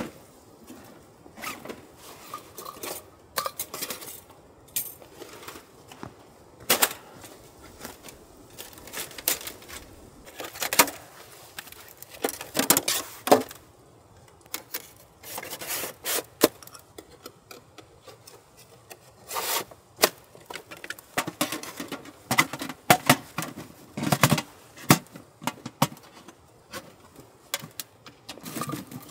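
Thin titanium panels of a folding wood stove clinking, tapping and scraping against one another as they are slotted together, in irregular sharp metallic knocks with short rubs between.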